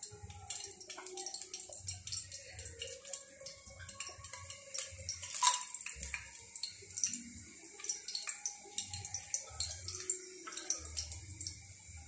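Whole spices (bay leaves, cinnamon, cardamom, cloves) sizzling and crackling in hot oil in an aluminium pressure cooker, with many small sharp pops. About five and a half seconds in there is a single louder clink.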